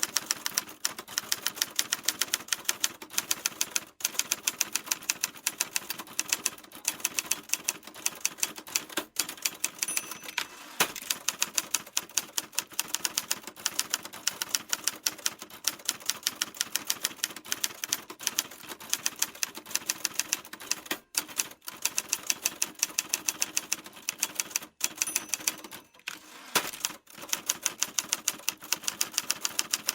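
Typewriter being typed on: a fast, steady run of key strikes several times a second, broken by a few brief pauses in the last third.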